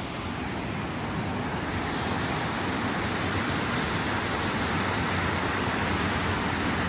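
River water rushing steadily down a smooth rock slide, growing a little louder about two seconds in.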